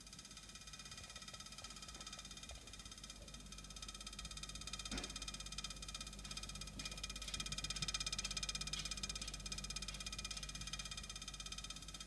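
Samsung French door refrigerator making a rapid buzzing vibration over a low hum, growing louder past the middle. It is the fault noise that is still there after a second repair attempt.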